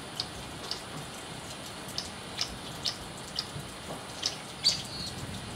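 Water dripping in irregular sharp ticks, roughly two a second, over a faint steady hiss. The loudest drip comes near the end.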